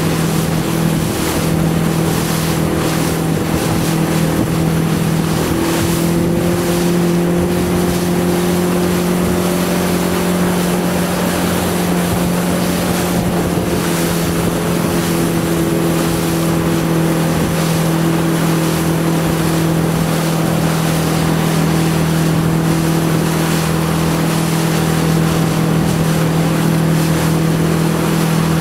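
Motorboat engine running at a steady cruise with a constant drone whose pitch shifts slightly a few times, over wind buffeting the microphone and the rush of water.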